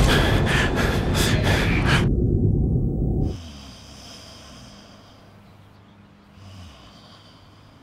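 Loud rushing whoosh over a deep rumble, like falling through air; the hiss cuts off about two seconds in and the rumble a second later. Then it is quiet, with a soft breath near two-thirds of the way through as the sleeper wakes from a dream of falling.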